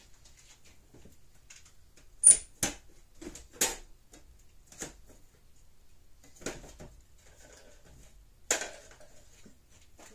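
Scattered clicks, knocks and rattles of small parts and containers being handled while searching for a replacement component, the loudest knock about two seconds in.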